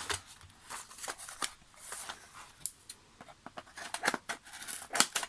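Parcel packaging being handled and cut open with scissors: scattered sharp snips, clicks and crinkles, more frequent near the end.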